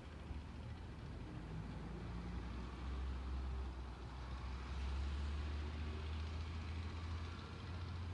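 Diesel engine of a garbage truck running at a distance, a low steady rumble that grows louder about three seconds in and eases near the end.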